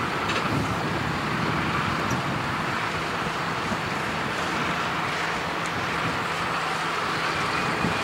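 John Deere tractor's diesel engine running steadily while working a reversible plough.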